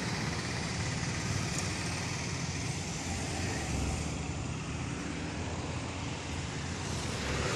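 Street traffic: cars and other vehicles going by, a steady mix of engine and tyre noise.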